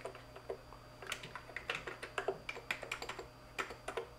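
Typing on a computer keyboard: a soft, irregular run of key clicks as a line of text is entered.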